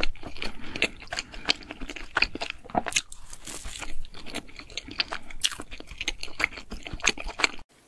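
Close-miked eating of a soft, cream-filled doughnut: biting and chewing with a dense run of wet mouth clicks and crackles, cutting off abruptly near the end.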